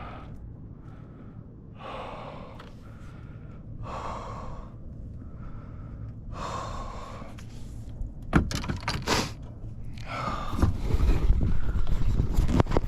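A man breathing hard in heavy, gasping breaths about every two seconds, winded after a long fight with a big fish. A few sharp knocks about eight seconds in, then a louder low rumble near the end.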